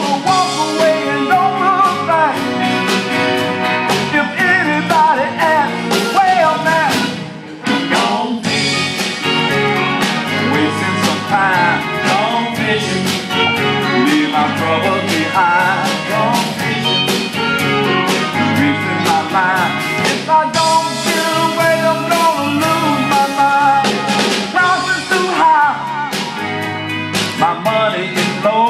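Live blues band music with a steady bass beat and a melody that bends in pitch, in a stretch with no sung lyrics. The music briefly drops in loudness about seven seconds in.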